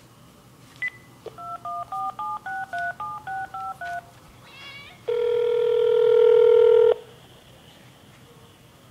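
Desk telephone dialed on speakerphone: about ten quick two-tone keypad beeps of a phone number, then one steady ringing tone of about two seconds on the line as the call goes through.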